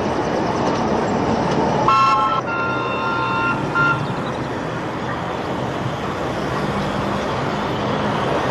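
British Rail Class 71 electric locomotive running, sounding its whistle about two seconds in: two notes held together for nearly two seconds, then a short final toot.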